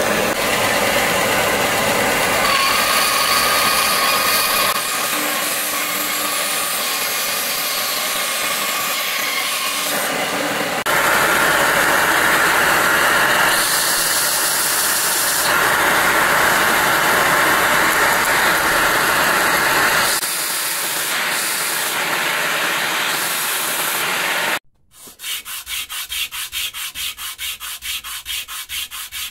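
Power tools working a wooden knife-handle scale: a bandsaw cutting the wood, then a belt grinder running with the scale pressed against the belt. Near the end the scale is rubbed back and forth by hand on sandpaper, about four strokes a second.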